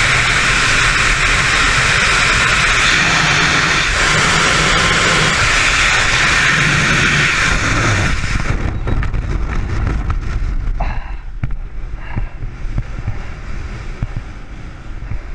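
Freefall wind rushing hard over a helmet-mounted camera's microphone, loud and steady. About eight seconds in the noise falls away and turns uneven and fluttering, full of short sharp pops, as the parachute deploys and the canopy opens.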